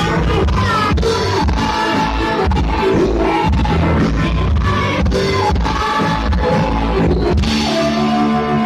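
Live rock band playing: electric guitars over a drum kit. Near the end the drums drop out, leaving a held guitar note and chord ringing.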